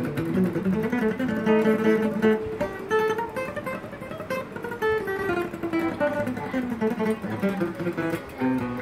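Guitar played with a Jim Dunlop Jazz pick: a run of single picked notes, demonstrating fast picking.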